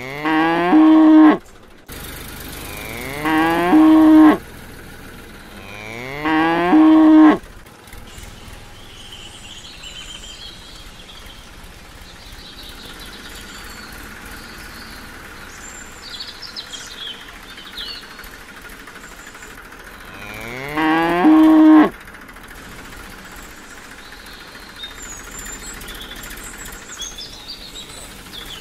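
A cow mooing four times, each moo rising in pitch and then held for about a second and a half. The calls are identical in shape, a recorded moo effect played over and over. The first three come about three seconds apart and the last about fourteen seconds later.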